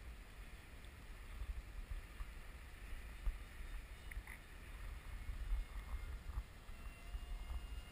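Wind rumbling on the microphone of a camera riding on a FunJet RC plane in fast flight. Near the end a faint thin whine from the plane's electric motor and pusher propeller comes in.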